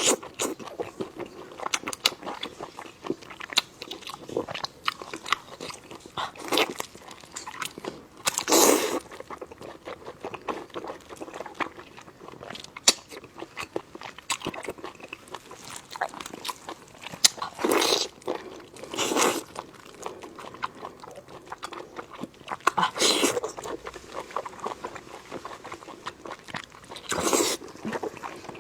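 Close-miked biting and chewing of sheep guts: a dense run of wet chewing clicks, broken by a louder, longer burst every few seconds. The bitten guts squeak.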